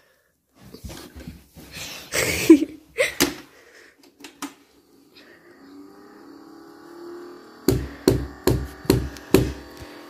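Toy Henry vacuum cleaner's small electric motor switching on about halfway through and running with a steady buzz. Before it come scattered knocks and handling of the plastic toy, and near the end five sharp knocks, about two a second, over the buzz.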